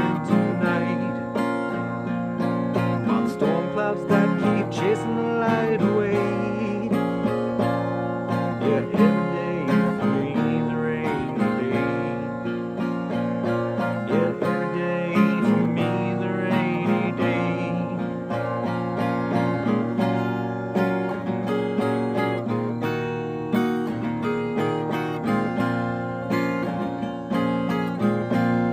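Fender Sonoran steel-string acoustic guitar played with a capo in a slow country song.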